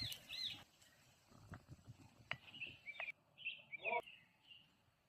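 Faint bird chirps: a run of short, quick calls in the second half, with a few light clicks among them.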